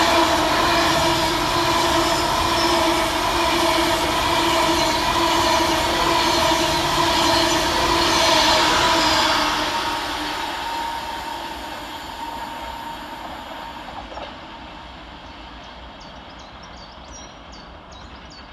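Avanti West Coast Class 390 Pendolino electric train passing at speed: a loud rush of wheels and air with a steady whine. The sound fades over the second half as the train draws away.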